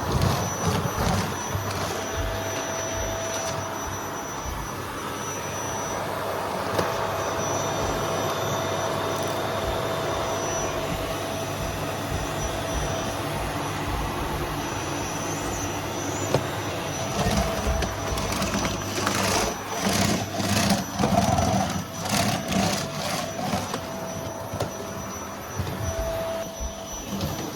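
Household vacuum cleaner running, a steady rushing noise with a thin whine. From about two-thirds of the way in its sound rises and falls unevenly, with scattered knocks and clatter.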